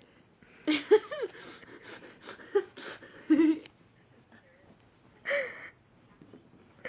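Short bursts of human voice without clear words, a few vocal sounds from about a second in to around three and a half seconds, and one more just after five seconds.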